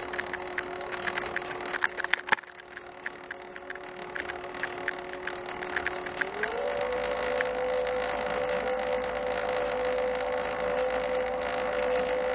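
Sur Ron electric dirt bike's motor whining steadily as the rear wheel spins off the ground, its chain running over a newly fitted 60-tooth rear sprocket with a rapid clicking rattle. About six seconds in, the whine steps up in pitch as the wheel speeds up and then holds steady.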